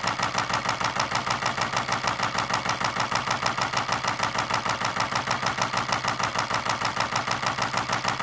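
Nikon D850 DSLR firing a continuous high-speed burst, its shutter and mirror clacking evenly at about seven frames a second while the shutter button is held down, shooting 14-bit lossless-compressed RAW to fill the camera's buffer.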